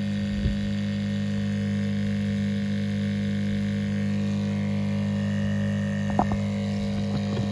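Small battery-powered electric water pump running steadily with a low hum while pumping water through a hose into a bottle. A couple of light knocks come about half a second in and again near the end.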